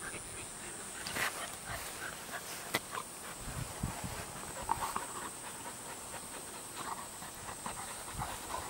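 Dog panting softly, with a few light rustles and scuffles in the grass.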